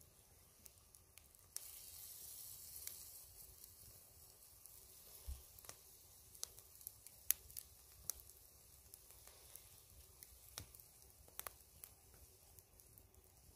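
Faint sizzling of juices in a skillet under a whole chicken roasting over a campfire, with scattered small pops and crackles.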